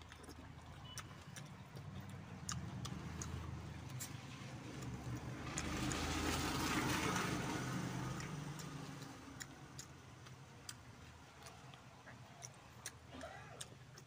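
A motor vehicle passing by, swelling up and fading away and loudest about seven seconds in, over scattered small clicks and smacks of eating rice and curry by hand.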